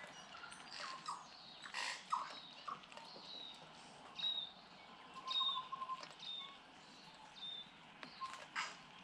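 Tui calling: a run of short high whistled chirps, about one a second, mixed with a lower held note and a few sharp clicks.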